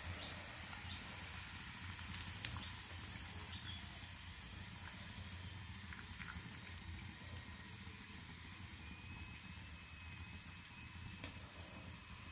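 Faint, steady hiss and low hum from a stovetop pan of hot coconut oil with fried shallots, barely sizzling just after more coconut oil has been poured in. A couple of light clicks come about two seconds in.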